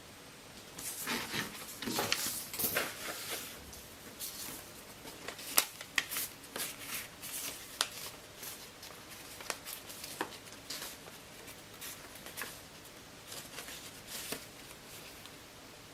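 Origami paper rustling and crinkling under the fingers as a paper ship is folded and shaped, in irregular bursts with sharp crisp crackles.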